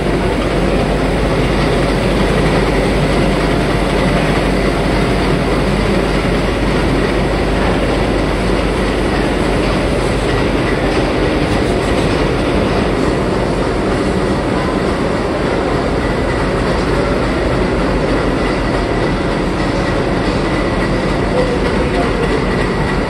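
Tea-processing machinery on a CTC black-tea line running steadily: a conveyor carrying cut leaf and a rotating fermenting drum, giving a dense, continuous mechanical clatter over a steady hum.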